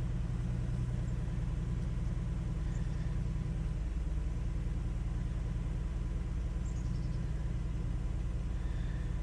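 2015 Ford Taurus 3.5-litre V6 idling steadily. A newly fitted fuel pump control module keeps it running, where the failed module let it stall after a few seconds.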